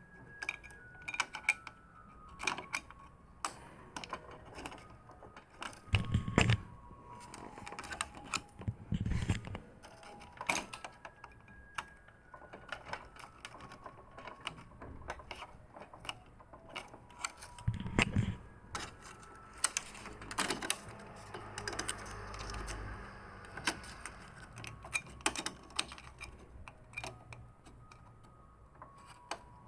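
Scattered clicks and taps of plastic printer parts being handled on a Canon MF4450 printer during a repair, with a few heavier knocks about 6, 9 and 18 seconds in.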